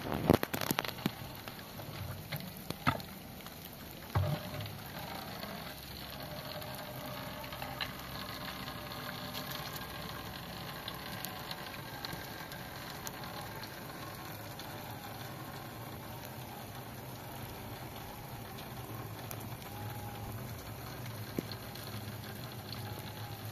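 Steady rain falling on open ground, with a few sharp knocks in the first seconds as a plastic water jug and metal basin are handled.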